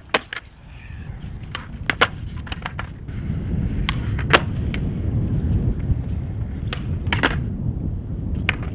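Skateboard on concrete flatground: a string of sharp wooden clacks from the tail popping and the board landing, the loudest about halfway through, over a steady low rumble.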